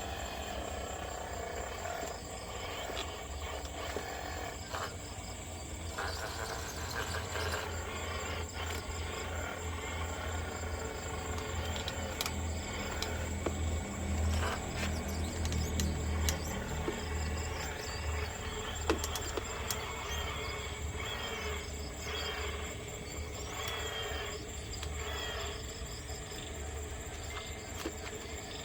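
Small electric motors and gearboxes of radio-controlled model trucks running under load, a low hum that swells about halfway through, with scattered clicks and knocks.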